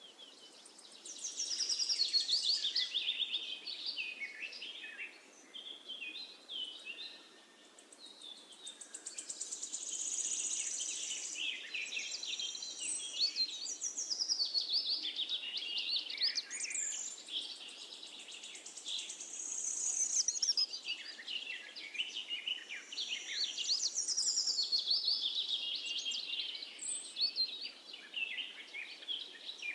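Birdsong: many overlapping quick chirps and trills.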